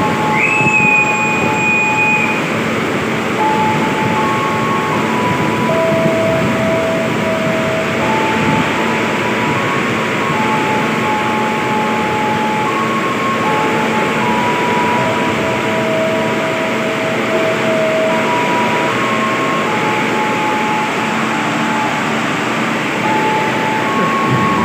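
Steady noise of heavy rain and a waiting train. A long, high whistle blast rises and holds for about two seconds right at the start and again at the end: the conductor's whistle for Indonesian railway signal 41, the ready-to-depart signal. Throughout, a slow series of plain tones steps between pitches every second or two.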